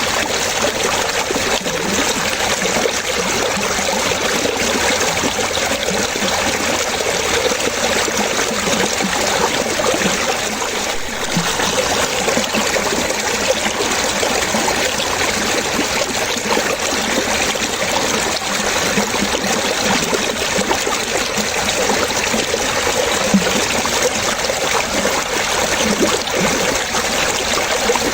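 Running water trickling and splashing steadily, in a constant dense wash with no breaks.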